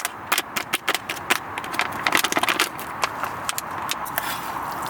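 Cookware handled over a camp stove: a quick, irregular run of sharp metallic clicks and light knocks, stopping near the end, over a steady hiss.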